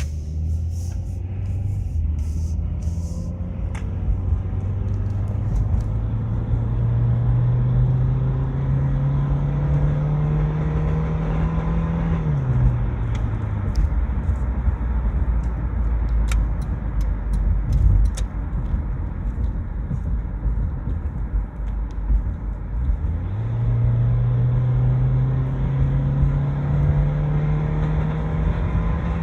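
2000 Honda CR-V's 2.0-litre four-cylinder engine revving up twice to near 5000 rpm, the pitch climbing and holding high before dropping back between runs. The owner reports a crunching grind just before 5000 rpm, with the tach needle wavering as if something is slipping.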